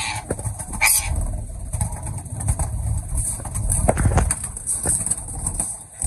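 Pigeons cooing low and repeatedly, with rustling and wing flaps from a green ringneck parrot struggling in a hand.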